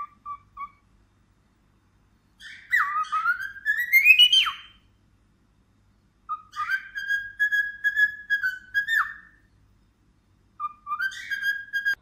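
A pet green parakeet whistling: a few short chirps, then separate whistled phrases, one climbing in pitch, one long held note that ends in a sharp drop, and a short one near the end.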